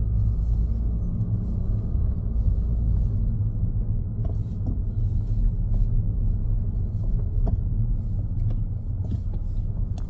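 Car driving on the road: a steady low rumble of engine and tyre noise, with a few faint clicks in the second half.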